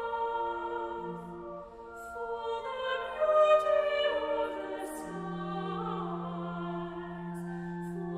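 Slow music with long held chords; a singing voice comes in about three seconds in and holds its notes over them.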